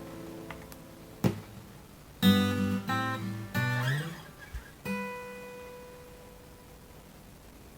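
A 1971 Gibson J-50 acoustic guitar played unaccompanied: a chord rings down, a few chords are struck in quick succession about two seconds in, and a last chord about five seconds in is left to ring and fade.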